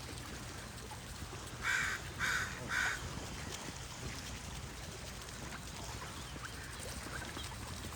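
A bird gives three short, harsh calls in quick succession about two seconds in, over a steady low background rumble.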